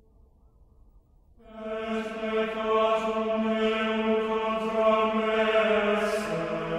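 Intro music: after about a second and a half of near silence, a deep chant-like drone comes in and holds one steady note, with a few short breathy hisses on top.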